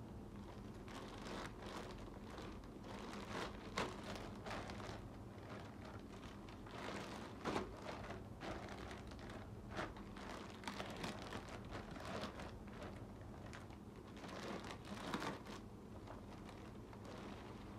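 Clear plastic poly bag crinkling and crackling as hands handle and open it, in irregular bursts with sharper crinkles now and then.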